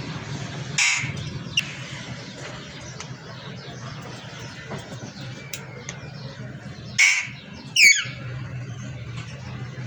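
Pet parrot giving three short, harsh squawks: one about a second in and two close together near the end, the last falling in pitch. A steady low hum runs underneath.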